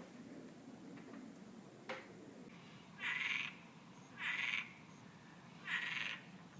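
Three short, harsh calls from an unidentified night animal, each about half a second long and spaced a little over a second apart.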